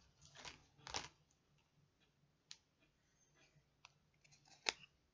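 Near silence with faint handling noise as model coins are picked up off the desk: a little soft rustling about a second in, a few light clicks, and one sharper click near the end.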